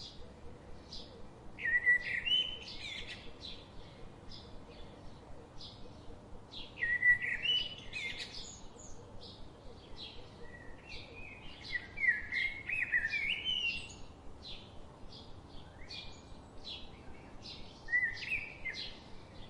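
Birds singing: quick, high chirps repeat throughout, and louder song phrases of stepped, rising notes come in four times, roughly every five seconds.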